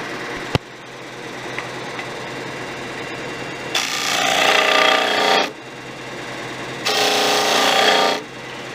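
Disc sander running steadily, with a sharp click about half a second in. A poplar block is pressed against the spinning sanding disc twice, about a second and a half each time, giving a louder grinding while the wood is on the disc, sanding away clamp marks.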